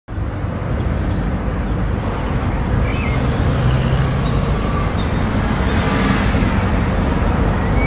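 Steady, loud outdoor background rumble, like urban traffic noise, with no clear single event.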